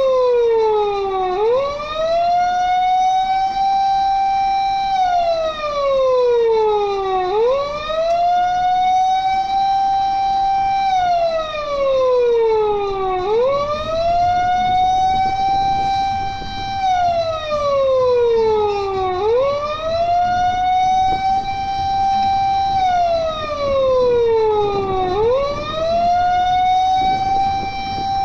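Electronic police-style siren wailing in a slow, repeating cycle: a quick rise to a held high note, then a long slide down, about every six seconds, five times over. It sounds while the full-size Patlabor 98-shiki AV Ingram is raised upright on its trailer.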